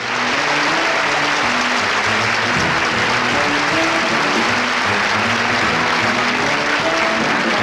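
Studio audience applauding over a band playing the song's intro, the clapping steady throughout.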